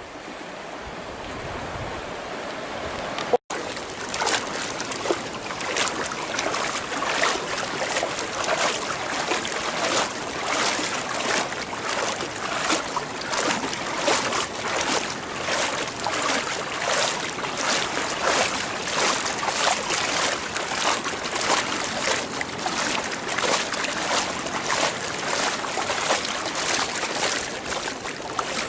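Fast-flowing floodwater rushing and splashing, loud and uneven. The sound cuts out for an instant about three seconds in and comes back louder.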